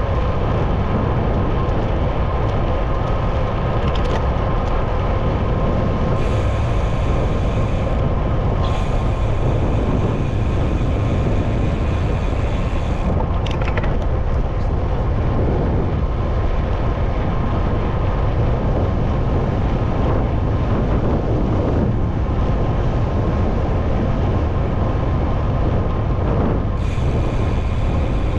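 Steady rush of riding a bicycle through city traffic: wind on the microphone, with passing road vehicles.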